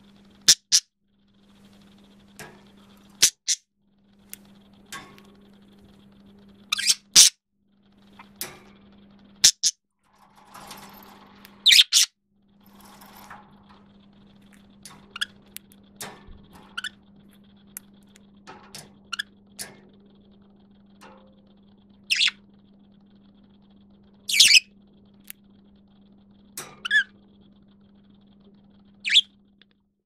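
Male budgerigar giving short, high, squeaky calls in a falsetto voice, a dozen or so scattered through, some in quick pairs.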